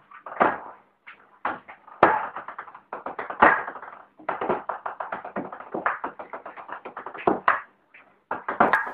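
Table tennis ball clicking on the table and paddles in a fast rally, many light ticks a second, with brief pauses between exchanges.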